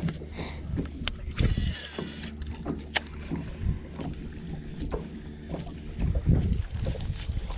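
Steady low hum of a fishing boat's electric trolling motor, with scattered clicks and knocks from a baitcasting reel and tackle being handled, a sharp click about 3 s in and a few heavier thumps about 6 s in.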